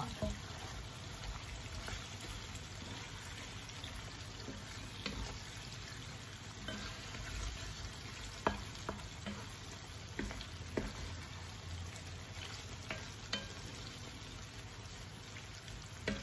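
Thick chili-paste sauce sizzling in a non-stick wok as fried chicken pieces are stirred and turned through it with a wooden spatula, with scattered light clicks and knocks of the spatula against the pan.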